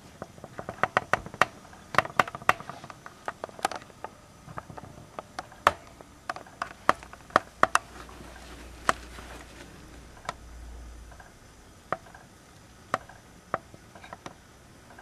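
A string of sharp, irregular clicks and taps, several a second at first and sparser later, with a low rumble for a few seconds after the middle.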